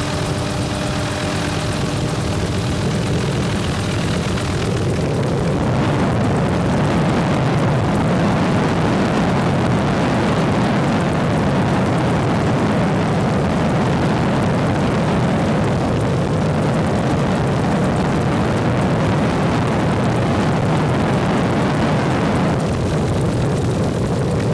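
Helicopter cabin noise in flight: a steady drone of rotor and engine with a few steady tones, covered by a louder rushing noise from about five seconds in until shortly before the end.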